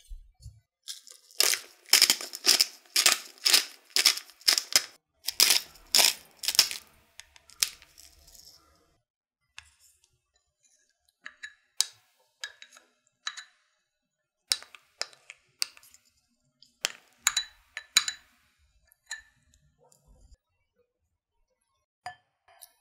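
Salt and pepper being shaken or ground over a glass bowl: a quick run of sharp rasping strokes, two to three a second, for about five seconds. Later come scattered lighter clicks and taps as a wooden spatula scrapes mayonnaise out of a glass bowl.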